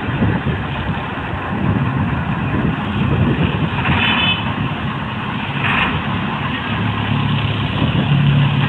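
Heavy road-paving machinery running: a steady, loud diesel engine drone with a constant noisy rumble, and two brief higher-pitched noises about four and six seconds in.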